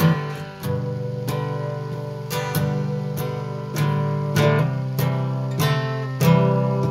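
Acoustic guitar strummed with a pick, ringing chords with a stroke about every half second as the instrumental introduction to a song.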